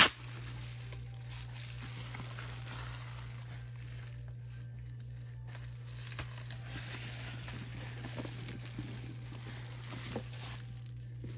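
Bubble wrap and plastic packing crinkling and rustling as it is pulled off and handled, over a steady low hum.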